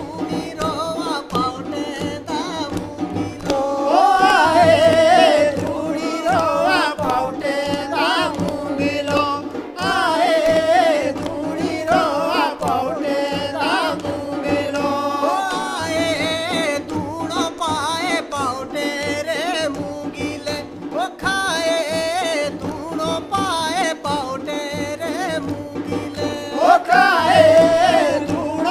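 Jaunsari harul folk song sung by a male voice over a steady sustained accompaniment, with regular drum strokes.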